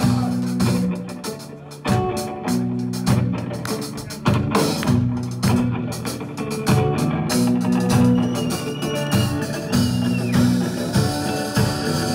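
Live rock band playing an instrumental passage: strummed guitar chords over a drum kit beat, with a higher held guitar line coming in about eight seconds in.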